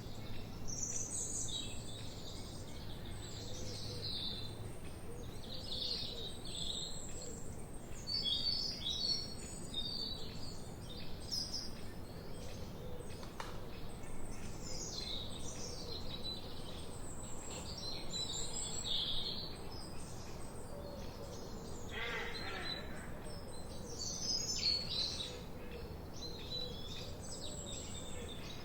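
Several forest birds singing and chirping at once, with overlapping short high phrases and trills throughout and a lower, harsher call about three quarters of the way through, over a steady low background hiss.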